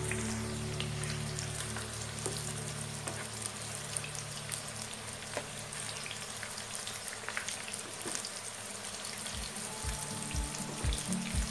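Tofu sticks deep-frying in hot oil in a wok, a steady sizzle with scattered crackling pops. Background music plays underneath, and a regular beat comes in near the end.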